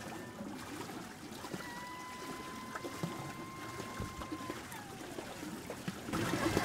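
Water trickling and lapping, with a steady whistle-like tone for about three seconds in the middle. Louder music comes in near the end.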